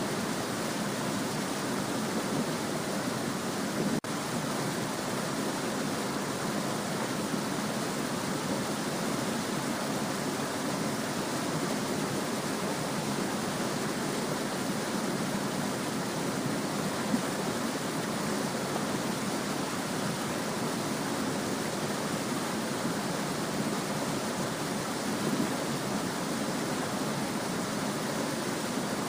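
Small stream babbling, a steady even rush of flowing water, with one brief click about four seconds in.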